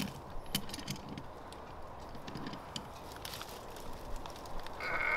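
Light clicks and taps of hands working a stuck hose fitting on an outdoor hose bib, with a louder, longer noise near the end.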